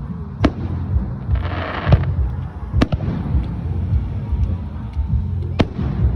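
Fireworks going off: three sharp bangs a couple of seconds apart, and a half-second hiss about a second and a half in, over a steady low rumble.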